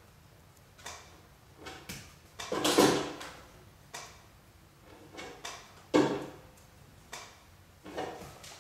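Irregular hard knocks and clatters, roughly one a second, of wooden sticks, a stool and a metal frame being bumped and shifted; the loudest come about three seconds and six seconds in.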